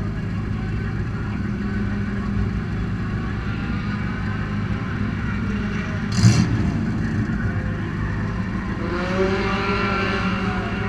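Race car engines idling while stationary, a steady low rumble. About six seconds in there is a single sharp clank, and near the end an engine's pitch rises as it is revved.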